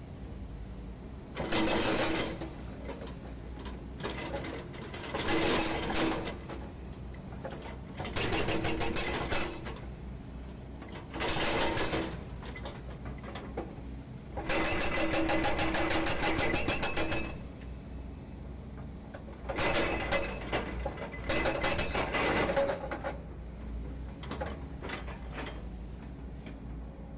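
Hydraulic breaker on a Volvo EC210D excavator hammering concrete pile offcuts to break them up, in six bursts of rapid blows, each one to about three seconds long, with a short start of another near the end. The excavator's engine runs steadily between the bursts.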